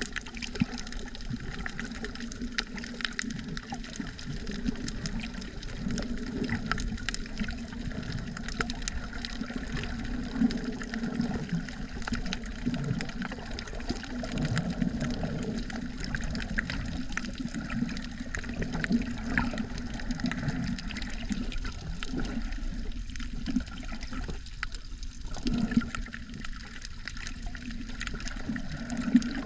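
Continuous muffled sloshing and gurgling of sea water heard by a camera under the water, with scattered faint clicks throughout.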